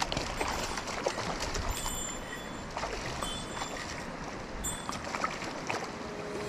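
Mountain stream water rushing and splashing steadily, with a faint high chirp three times, about a second and a half apart.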